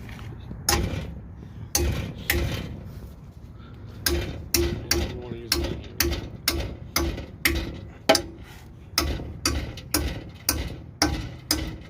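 Repeated sharp metallic knocks, each with a short ring, few at first and then about two a second, from hand tools working on exhaust hardware.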